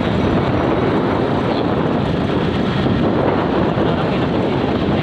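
Steady rushing noise of traffic and wind on the microphone, even and unbroken.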